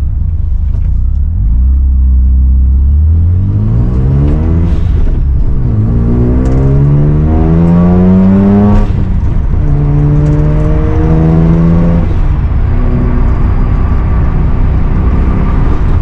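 Mazda FD RX-7's twin-rotor 13B rotary engine heard from inside the cabin, pulling up through the gears. The revs climb twice, the second pull the loudest, with a gear change after each, then settle to a steady cruise.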